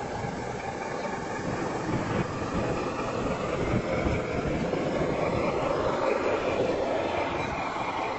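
G-scale model train passing close by: a pair of model diesel locomotives, then a long line of ore hopper cars, their wheels rolling steadily over the track along with the hum of the locomotives' electric motors.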